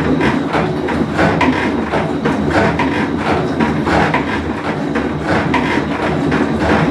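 Whirlpool Cabrio top-load washing machine running mid-cycle with a loud, continuous rumble and rapid, irregular knocking, the noise of a bad tub bearing.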